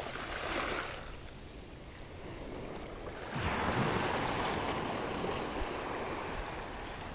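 Low surf washing up a sandy beach. A small wave rushes in about three seconds in, then slowly fades as it runs back.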